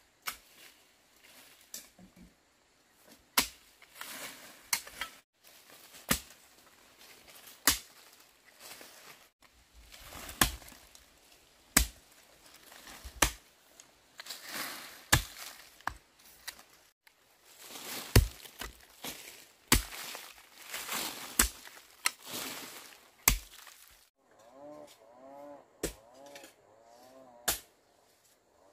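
A hand tool striking repeatedly, one sharp chop every second or two, with scraping and rustling between the strikes.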